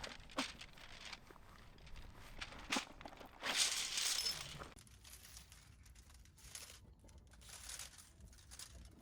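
Crinkly material being handled and rustled in irregular bursts, with a few small clicks; the loudest stretch of rustling comes about three and a half seconds in and lasts about a second.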